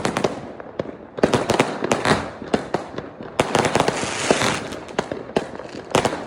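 Many consumer fireworks and firecrackers going off at once, a dense run of sharp bangs over continuous crackling, with busier spells of crackle about a second in and again from just past the middle.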